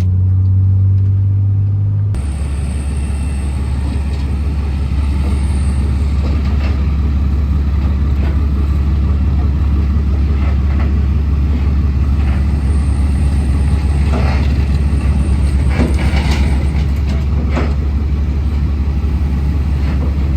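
A road vehicle driving, with a steady low engine drone and road noise, and scattered knocks and rattles over it.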